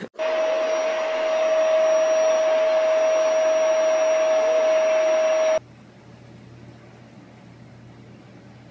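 A household electric appliance motor running with a steady whine over rushing air. It starts abruptly and cuts off suddenly about five and a half seconds in, leaving only a faint low hum.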